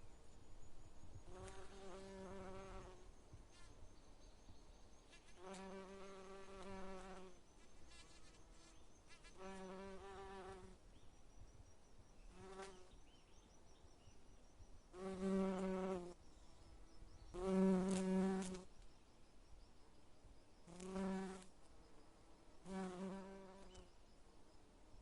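A bee buzzing close by in a string of separate passes: about eight buzzes, each lasting around a second with quiet gaps between, holding a steady low hum. The two loudest come about two-thirds of the way through.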